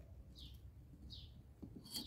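Two faint, short bird chirps, each sliding down in pitch, over a quiet background.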